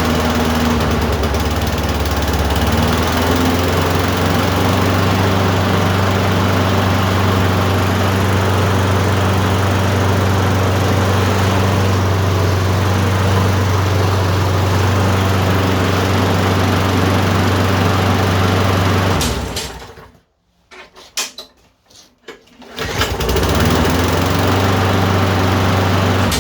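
Briggs & Stratton single-cylinder engine on a walk-behind lawn mower running steadily, just after a cold start. It stops about 19 seconds in, a few knocks follow, and then it is running again for the last few seconds.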